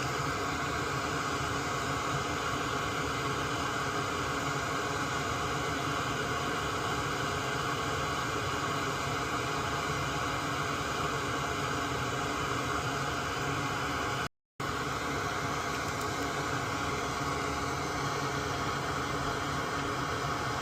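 Steady whooshing hiss of a small electric fan running at the workbench, unchanging throughout apart from a brief total dropout about two-thirds of the way through.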